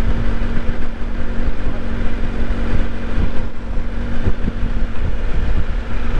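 A vehicle running steadily on the move, with a constant hum and heavy low wind rumble on the microphone.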